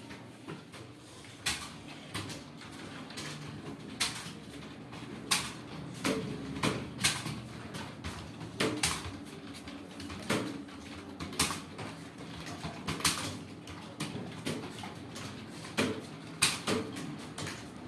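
Computer keyboard keys being typed on in an uneven rhythm, a few sharp clicks a second, over a steady low background hum.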